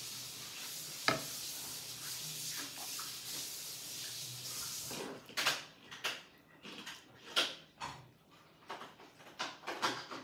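A metal spoon scraping and tapping against a pan as filling is scooped out into a bread roll, heard as a run of separate short scrapes and clinks in the second half. Before that there is a steady hiss for about five seconds, with one sharp click about a second in.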